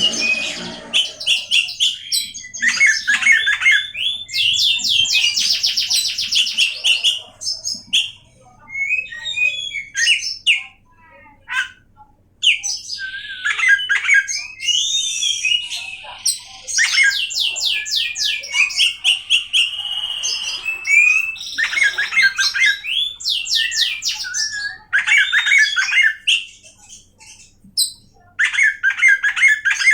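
Oriental magpie-robin (kacer) singing a long, varied song of fast trills, rapid repeated notes, gliding whistles and harsh notes, with a sparser, quieter stretch about a third of the way in. The song strings together a repertoire of learned, mimicked phrases.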